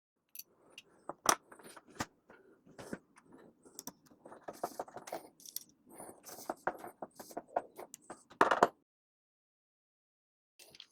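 Small metal door hardware being fitted to a door: a door handle and bolt handled and put in place, with irregular clicks, light rattling and scraping, and a louder clack about eight and a half seconds in.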